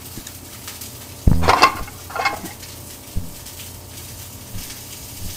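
Tuna steaks searing in avocado oil in a hot stainless-steel skillet: a steady sizzle and crackle, with a brief louder sound about a second and a half in.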